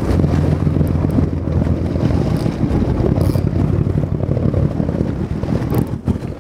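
Sportfishing boat's engine running in a steady low rumble, with wind buffeting the microphone and a few short hisses on top.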